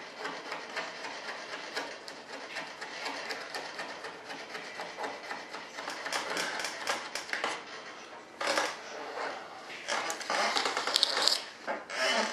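Hand-sanding a molded wing-tip part with a small sanding pad: a steady scratchy rasp of quick back-and-forth strokes, with louder bouts of scrubbing about eight and a half seconds in and again around ten to eleven seconds.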